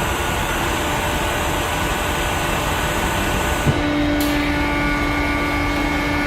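Steady mechanical noise of workshop machinery. About four seconds in there is a click, after which a steady hum joins in.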